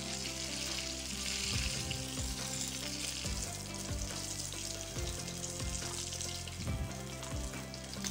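Spring rolls shallow-frying in hot oil in a pan, sizzling steadily. The sizzle eases after about three seconds. A few light knocks come as metal tongs lift the rolls against the pan.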